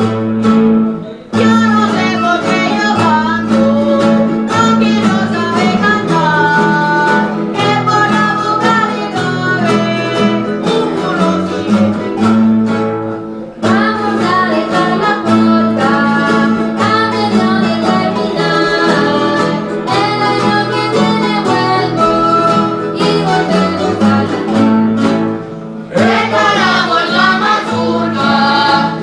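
A folk ensemble playing live on guitars and other plucked string instruments, a steady strummed bass under a plucked melody, with short pauses between phrases. Voices come in near the end.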